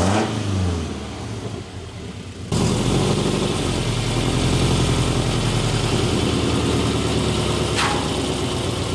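Subaru BRZ's 2.0 L flat-four boxer engine running through an unequal-length header with no muffler or catalytic converter. A rev falls away at the start, then after an abrupt change about two and a half seconds in it idles steadily with an uneven, pulsing boxer rumble.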